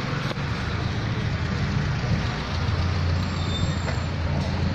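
Street traffic noise: car engines running and passing close by, a steady low rumble that grows heavier about halfway through.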